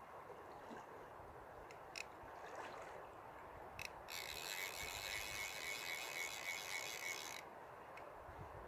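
Fly reel's drag ratcheting in a fast buzz for about three seconds as a hooked steelhead pulls line off, after a couple of short clicks. Steady river flow underneath.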